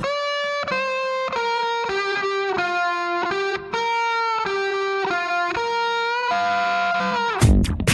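Background music: a lone electric guitar melody of held single notes, some bending at their ends, with no drums until the beat comes back in near the end.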